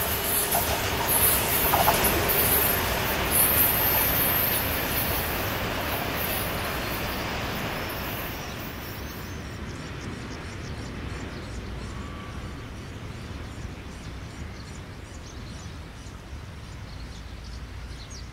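A freight train loaded with stone rolls away over the track, its wheels and wagons rumbling and fading steadily into the distance. A very high, thin squeal rides over the first half and stops about halfway through.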